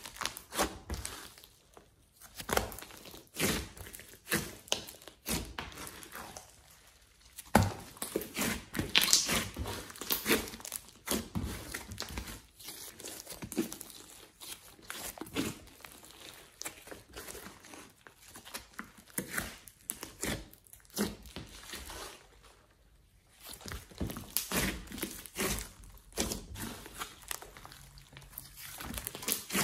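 Glossy slime mixed with clay and floam being pressed, stretched and folded by hand: a run of irregular sticky crackles, pops and squelches, broken by a few short pauses.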